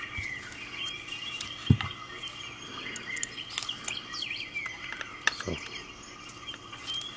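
Birds chirping in the background, with sharp knocks from handling the trigger lock and its pins, the loudest about a second and a half in and another near five seconds in.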